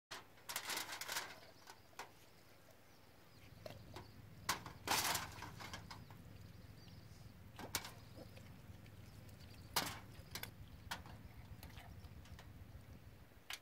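Faint, intermittent crinkling of aluminium foil and scattered sharp clicks as a raw chicken is handled over the foil. The loudest rustles come about a second in and again around five seconds in, over a low steady hum.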